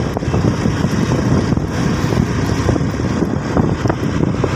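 Steady low rumble of a road vehicle on the move, with wind buffeting the microphone.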